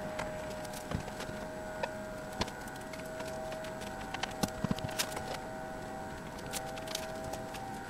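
Scattered light clicks and taps as a silver trim strip is handled and fed into a windscreen rubber seal, with a small cluster of taps about two-thirds of the way through, over a steady hum.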